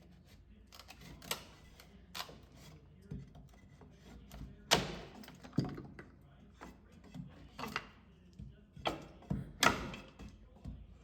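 A series of irregular knocks and thuds, about seven of them spread unevenly, the loudest nearly five seconds in.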